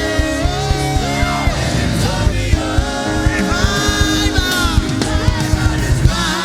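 Live gospel worship music: a band plays a steady drum beat under held bass and keyboard notes while a voice sings a sustained melody.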